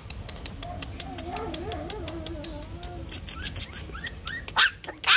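Bắc Hà xù puppy whining and yelping: a wavering whine about a second in, then a run of short rising yips and two sharper, louder cries near the end, over many quick clicks.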